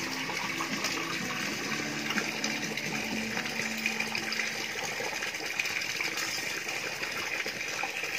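A thin stream of water pouring steadily into a shallow inflatable paddling pool, splashing on the water's surface.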